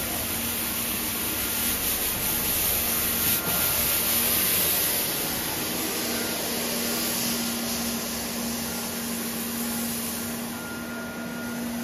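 Autonomous floor scrubber-dryer running in full operation: the steady noise of its suction motor and scrub brush with a low hum and a faint higher tone. It gets a little louder for a few seconds about two seconds in.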